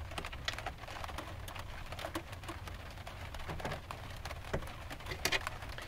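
Rain tapping on a van's metal roof: many small scattered ticks over a steady low rumble.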